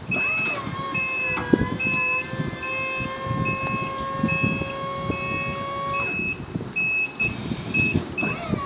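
2004 Skyjack SJ3220 electric scissor lift raising its platform: the hydraulic pump motor whines steadily and stops about six seconds in, while the lift's motion alarm beeps repeatedly, a little more than once a second.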